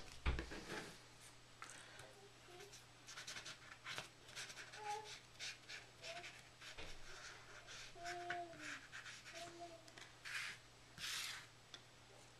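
Soft rustling and handling of cut paper pieces being glued down on a craft table, with two louder rustles near the end. A few faint short pitched squeaks or whines come in the middle.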